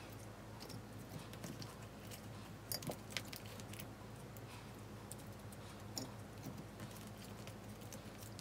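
Clear slime packed with plastic beads being stretched by hand and laid in a glass dish: scattered small clicks and sticky crackles, with a few louder taps about three seconds in and again near six seconds.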